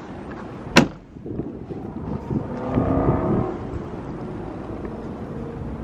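A vehicle passing, its engine hum swelling and fading in the middle, over wind on the microphone. A single sharp click about a second in.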